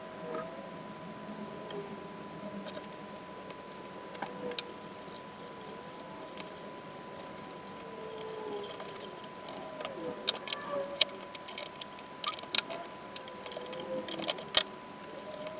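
Small parts being handled at a workbench: scattered sharp clicks and light clinks, busiest in the second half, over a steady faint high tone.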